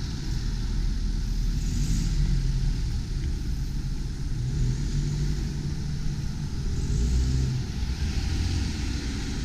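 Road traffic: cars and vans driving past close by, a steady mix of engine and tyre noise that swells twice as vehicles pass, over a deep continuous rumble.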